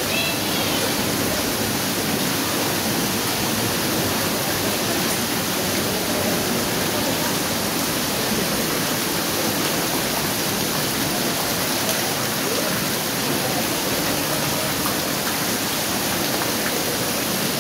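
Water pouring and dripping steadily from a rock tunnel's ceiling and walls onto a flooded floor: an even, unbroken rushing hiss inside the tunnel.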